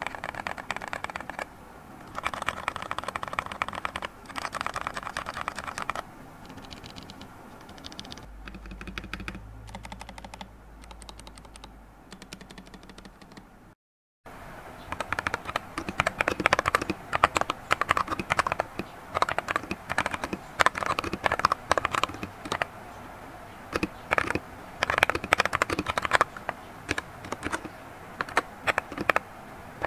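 Mechanical keyboard with XDA-profile keycaps being typed on. First come bursts of key presses that compare wine red and greywood switches. After a brief cut-out about 14 seconds in, continuous fast typing follows.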